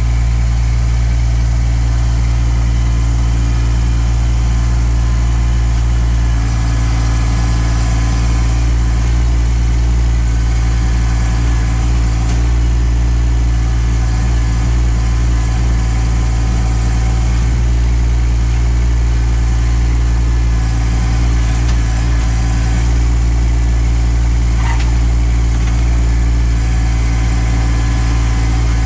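Kubota LX2610 compact tractor's three-cylinder diesel engine running steadily.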